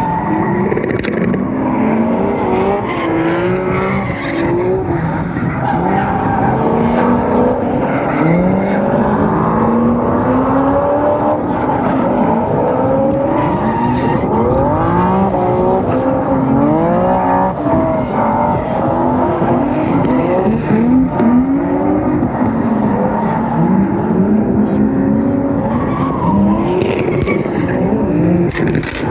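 Drift cars on track, engines revving up and down over and over as they slide, with tyre squeal and skidding.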